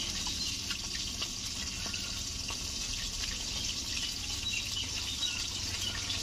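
Rui fish pieces frying in hot mustard oil in a kadai: a steady sizzle with scattered small pops.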